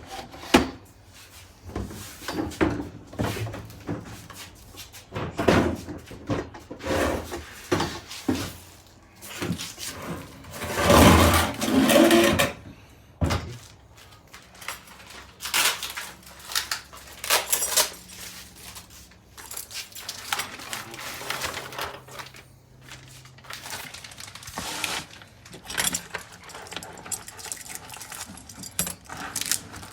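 Metal garage-door parts being handled and knocked, with scattered clinks and clunks, and about eleven seconds in a two-second hissing burst of WD-40 aerosol spray.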